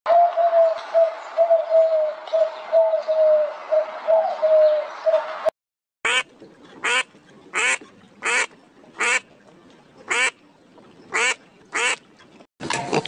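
A chipmunk's rapid, continuous low chucking call for about five and a half seconds. After a short break, mallard ducklings peeping: about eight short high calls at intervals of under a second, with a few more near the end.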